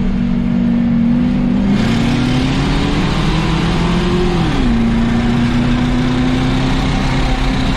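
A race car engine running under power. Its pitch climbs steadily for a couple of seconds, drops sharply about halfway through, then holds steady. A louder rush of road and wind noise sets in about two seconds in.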